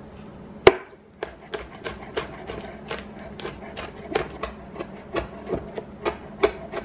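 Chef's knife chopping scotch bonnet peppers on a cutting board: one sharp knock under a second in, then a steady run of blade taps on the board, about three to four a second.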